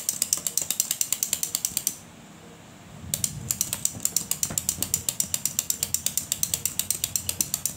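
Toy rooster's gear mechanism clicking rapidly and evenly, about seven clicks a second. It stops for about a second a couple of seconds in, then starts again.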